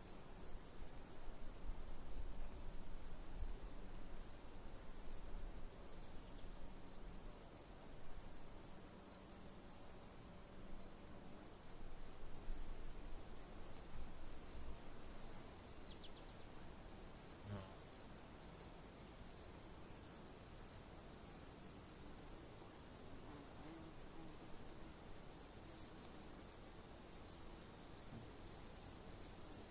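Crickets chirping at night: a steady high-pitched trill with a second insect's rapid repeated chirps beneath it.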